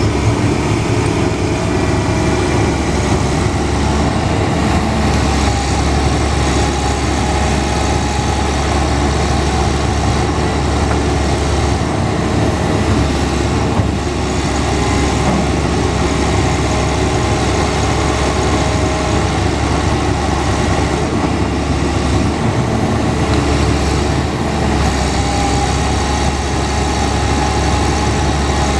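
Cat 320D hydraulic excavator's six-cylinder diesel engine running steadily, a deep drone with faint higher tones that come and go.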